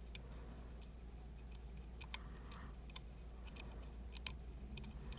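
Faint, irregular small clicks of a lock pick working the pin stack of an Emhart Black Belt pin-tumbler lock, lifting and probing the sixth pin while it binds.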